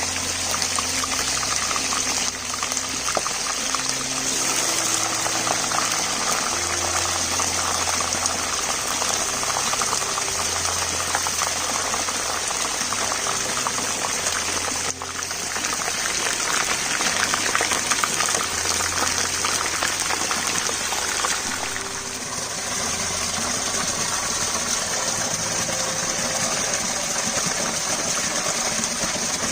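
Steady rushing, bubbling water-like noise, broken by sudden cuts a few times, over a faint pattern of low notes that change every second or two.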